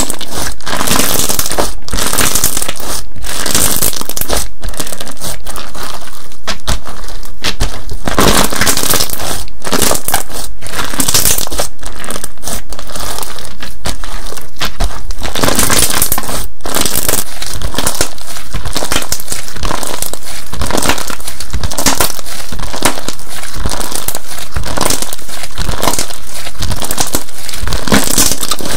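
Slime being squeezed, folded and poked by hand close to the microphone, giving dense, continuous crackling and crinkling pops.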